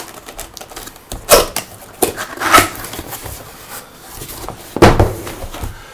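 Cardboard box being opened and handled: flaps pulled open and the box shifted, with a few sharp knocks and scrapes, the loudest about a second and a half in and near the end.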